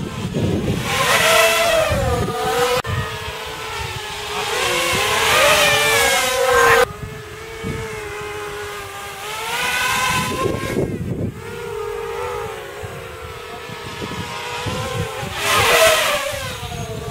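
250-size FPV racing quadcopters flying past, their motor and propeller whine gliding up and down in pitch as the throttle changes. There are several loud passes, with the loudest about 1–2 s, 5–7 s, 10 s and 16 s in.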